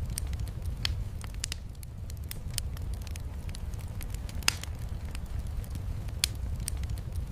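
Wood fire crackling in a fireplace: irregular sharp pops and snaps, the loudest about four and a half seconds in, over a steady low rumble.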